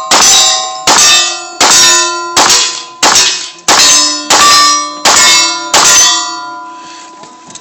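Lever-action rifle fired nine times in quick, even succession, a bit under a second apart, each shot followed by the ring of a hit steel target. The ringing pitch changes from shot to shot as different plates are struck, and it fades out after the last shot.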